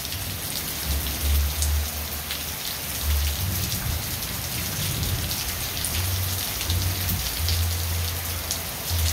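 Steady rain falling and hitting surfaces, a dense hiss of many small drop ticks, with a low rumble underneath that swells and fades several times.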